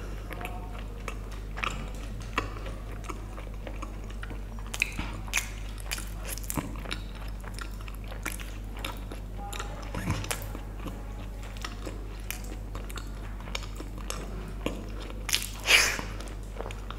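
Close-miked eating sounds: chewing, lip smacks and scattered small crunchy bites, with one louder bite about a second before the end. A steady low hum lies underneath.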